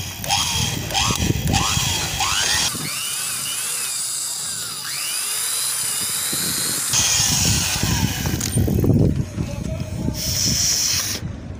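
Electric hand drill boring out the stripped threads and remaining steel bolt in an aluminium motorcycle cylinder head with a 6.5 mm bit. The motor runs in bursts, its pitch rising each time it spins up.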